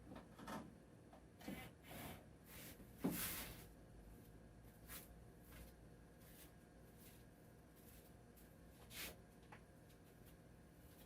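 Faint handling noise of screws being worked out of a sheet-metal oven casing: a run of short clicks and scrapes in the first few seconds, the loudest about three seconds in, then scattered quieter clicks with one more near the end.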